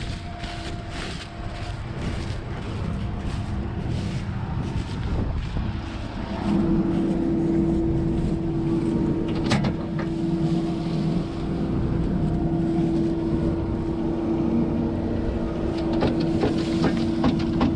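John Deere T670i combine harvester running with a steady drone that gets louder about six and a half seconds in. A few sharp knocks come through, once near the middle and several near the end.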